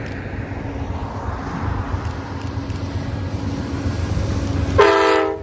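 Low steady rumble of a diesel locomotive. Near the end comes a short, loud blast of its Nathan K5LA five-chime horn, a chord of several notes that ends sharply.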